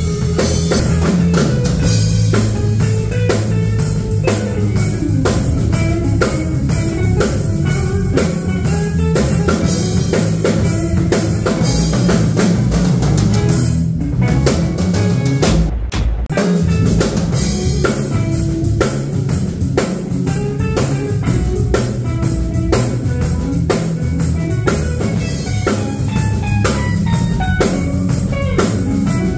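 Band jamming: a drum kit played hard with bass drum and rimshots, backed by bass and guitar, with a short break about halfway through.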